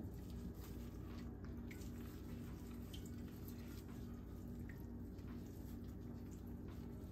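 Faint drips and soft wet squishing as raw pork chitterlings are handled and picked clean by hand, over a low steady hum.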